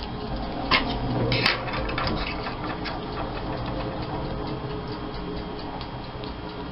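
Steady, evenly spaced ticking, with two louder clicks about a second in as small craft pieces are handled.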